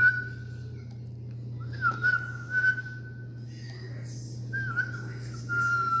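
Whistling: three long whistled notes at one steady pitch, each held for a second or more, with a small waver at the start of each.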